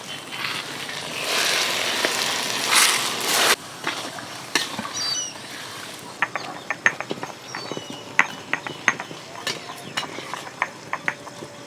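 Water poured into a cooking pan for the jaggery syrup: a rushing hiss for about two seconds, followed by a run of quick, irregular clicks and taps.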